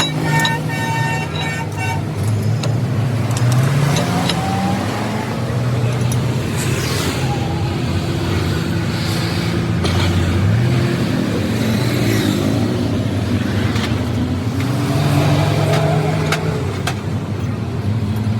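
Motor vehicle engines running, their pitch rising and falling, with a vehicle horn sounding briefly at the start.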